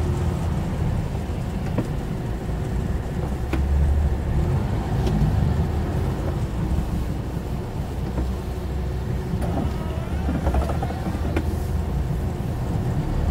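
Lorry engine running at low revs as the truck creeps forward, heard from inside the cab as a steady low rumble, with a few sharp clicks.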